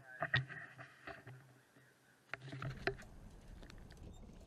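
A few sharp knocks and taps as a freshly caught walleye is handled at the side of a fishing boat, over the steady hum of the boat's motor. About two and a half seconds in, this gives way to a low rush of wind on the microphone.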